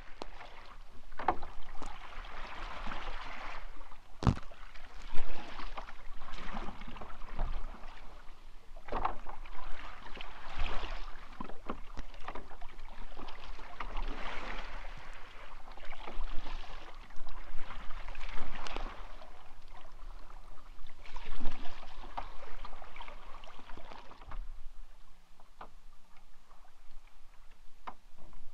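Kayak paddling: paddle blades swishing through lake water in strokes every two to three seconds, with a few sharp knocks in between. The strokes fade after about 24 seconds.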